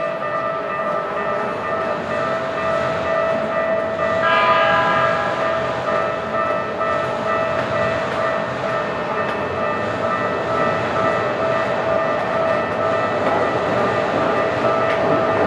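Japanese level-crossing warning bell ringing steadily while a Keikyu train passes. A short train horn blast comes about four seconds in, and the train's running rumble builds toward the end.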